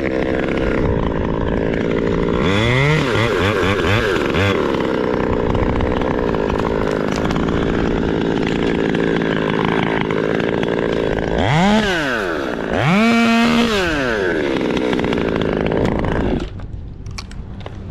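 Chainsaw running, revved up and back down twice, around 3 s and again around 12 to 14 s, holding a steady speed in between. It gets quieter about 16 s in.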